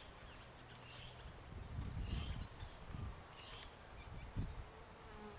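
Insect buzzing, with a few short high bird chirps about two and a half seconds in.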